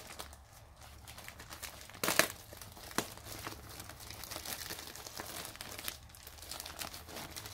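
A plastic bag being opened and handled, crinkling and rustling in irregular crackles, with a louder sharp crackle about two seconds in.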